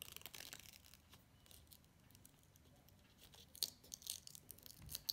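Faint crackling and ticking of a sticker being peeled off its backing sheet with metal tweezers, with a few slightly louder clicks in the second half.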